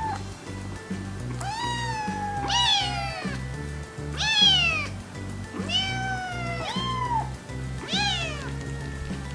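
Young orange-and-white kitten meowing over and over, about seven high calls that each fall in pitch, over background music with a steady beat.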